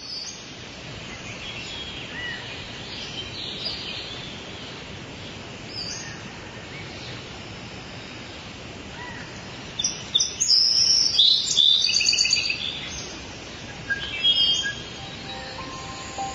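Birds chirping over a steady outdoor hiss, with scattered short calls and a burst of louder, quick repeated chirps about ten seconds in, then another a few seconds later.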